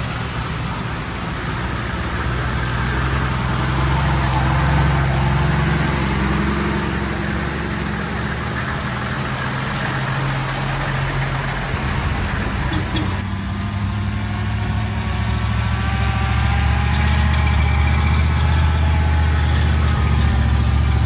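Engines of a convoy of old military trucks driving past: a steady low rumble that swells a little as trucks go by. About thirteen seconds in, the sound cuts abruptly to another truck engine whose pitch wavers.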